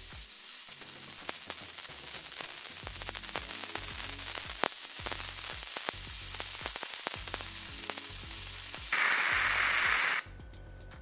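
Gasless flux-cored MIG welding with a SEDA MIG-200MDP set to about half output: a steady crackling sizzle of the arc with sharp spatter pops. It gets louder and hissier for the last second or so, then cuts off suddenly about ten seconds in as the bead ends.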